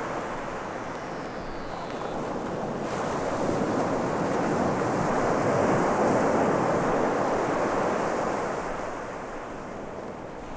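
A wash of surf-like noise, like waves rolling in, closing an ambient electronic piece. It swells to a peak about halfway through and then fades away. A faint falling whistle sounds in the first two seconds.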